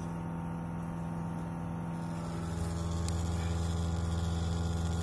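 Steady mechanical hum. About two and a half seconds in it grows louder, with a deeper rumble and a hiss added.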